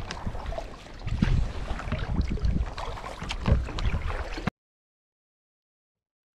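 Sea kayak under way on calm water: paddle strokes splashing, water sloshing along the hull, and wind rumbling on the microphone. The sound cuts off abruptly about four and a half seconds in, leaving dead silence.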